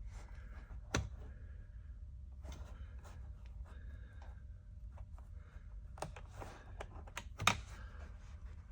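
Plastic push-pin trim fasteners being pressed back into a car's interior trim: two sharp snaps, one about a second in and one near the end, among lighter clicks and rustling of handling.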